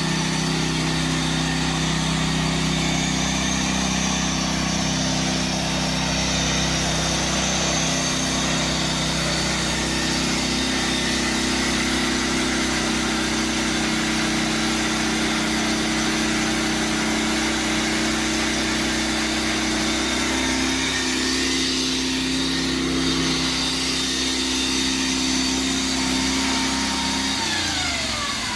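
Lucas chainsaw slabbing mill running steadily under load, its petrol engine held at full throttle as it saws through a wide silver maple crotch log. Near the end the engine pitch falls as it drops back toward idle.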